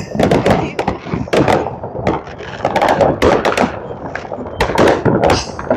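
Fireworks going off all around at New Year's midnight: a dense, irregular run of sharp bangs and crackling pops.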